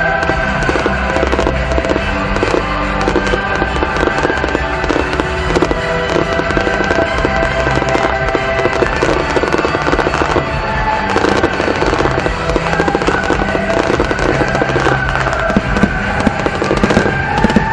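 Aerial fireworks going off in rapid succession, a dense run of bangs and crackles with no pause, over music playing.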